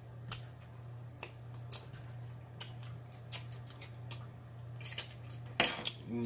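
Close-miked mouth sounds of eating fried catfish: crisp, irregular crunching and chewing clicks with wet lip smacks, over a steady low hum.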